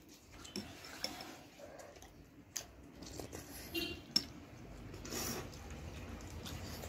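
Metal spoons and forks clinking and scraping against ceramic bowls during a meal, with a few short sharp clinks.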